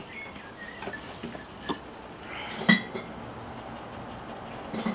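Glass beer bottles clinking and knocking in a plastic cooler box as it is opened and rummaged through: a few separate clinks, the sharpest, with a short glassy ring, a little under three seconds in.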